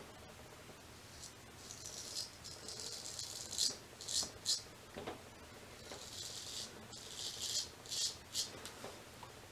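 Straight razor scraping stubble through shaving lather on the neck: a series of short, scratchy strokes, in two runs with a brief pause about halfway.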